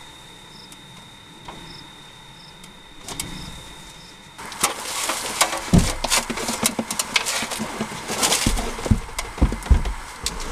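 The plastic housing of a MasterCool evaporative cooler knocking and scraping against the house wall as it is lifted and pushed into place. The handling starts suddenly about four seconds in, with a rushing noise and repeated thumps after a quiet start.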